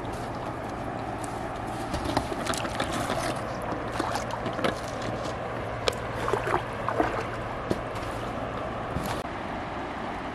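River water lapping at the shore with steady wind noise, and a scatter of small clicks and knocks between about two and nine seconds in.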